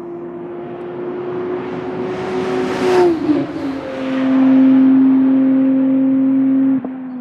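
A McLaren Artura GT4 test car's twin-turbocharged 3.0-litre V6 accelerating past. A steady engine note drops in pitch as the car goes by about three seconds in, then is at its loudest as the car pulls away down the straight, and drops off suddenly near the end.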